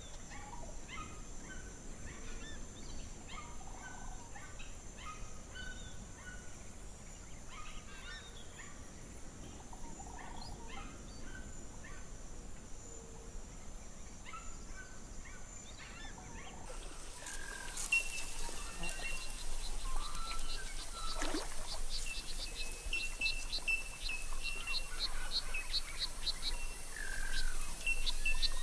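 Birds chirping and calling, many short calls one after another. About 17 seconds in, the background changes abruptly, and from then on a fast, even series of high notes runs alongside the calls.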